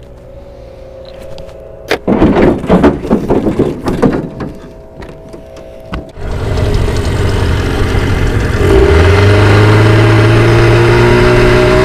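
Small tiller outboard motor running as the boat gets under way. About three seconds after the motor comes in it throttles up, its pitch rising a little and then holding steady. Before that, about two seconds in, there are a couple of seconds of loud irregular noise.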